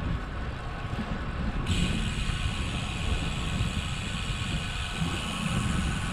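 Wind buffeting the microphone of a camera on a moving road bicycle, riding into a headwind, with tyre noise on the paved trail. About a second and a half in, a steady higher hiss joins the rumble.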